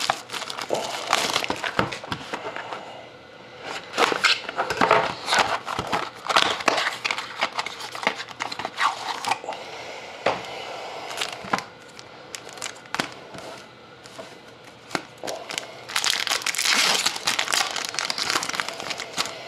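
Foil-wrapped 2012-13 Fleer Retro hockey card packs crinkling and clicking as they are taken out of the box and handled, with a denser, louder stretch of crinkling near the end as a pack is torn open.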